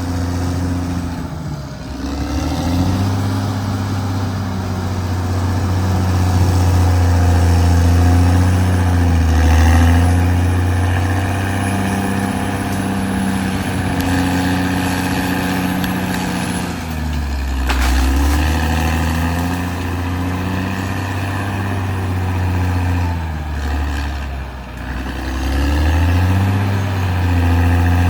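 Caterpillar D6R XL bulldozer's diesel engine running under working load, its note dipping and recovering several times as it lugs and picks up again. A single sharp knock comes about eighteen seconds in.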